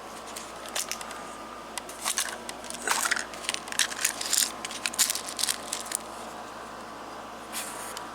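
Hands handling a pack of airgun pellets: a run of small clicks, rattles and crackles, busiest in the middle seconds.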